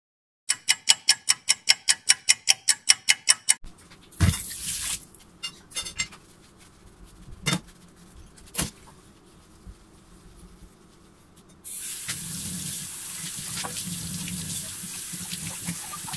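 A quick, even run of loud clicks, about five a second, for about three seconds. Then a few sharp knocks of a glass dish being scrubbed in a stainless steel sink, and from about twelve seconds in, tap water running steadily over the dish into the sink.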